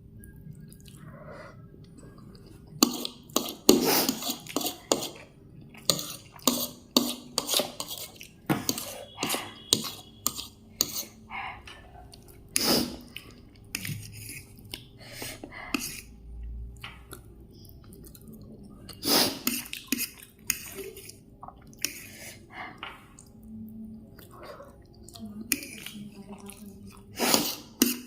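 Cutlery clinking against a dish in sharp, irregular strikes while soupy Maggi noodles are eaten, with wet eating sounds in between.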